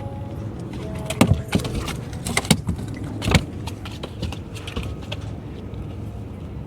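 Several sharp knocks with a jangling rattle, bunched about one to three and a half seconds in, then a few lighter clicks, over a steady low rumble.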